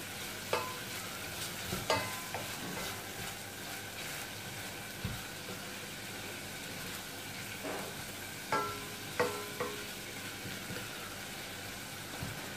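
Diced celery sizzling steadily in butter in a stainless steel pot while a wooden spoon stirs it, knocking against the pot about six times, mostly in the second half, each knock leaving a brief metallic ring.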